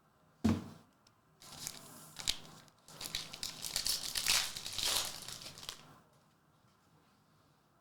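Foil trading-card pack wrappers crinkling and tearing open, with a dull thump about half a second in. The crinkling stops about six seconds in.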